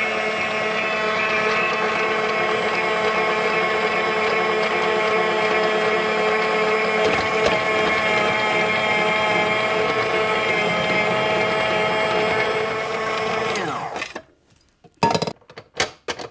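Starfrit electric spiralizer's motor running steadily while it cuts a zucchini into spiral noodles, then winding down and stopping near the end. A few sharp knocks follow.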